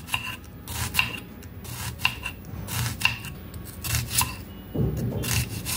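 A Prestige kitchen knife slicing through a halved red onion on a cutting board. It makes a steady run of short cuts, about two a second, each ending in a tap of the blade on the board.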